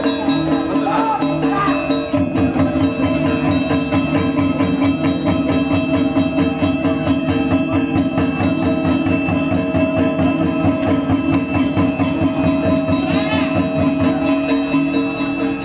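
Balinese gamelan playing for a Barong dance: steady ringing metallic tones over fast, dense drum and percussion strokes that thicken about two seconds in.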